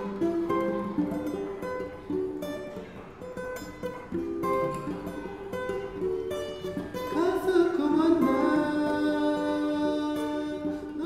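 Background music: a plucked-string tune, with a voice singing over it from about the middle.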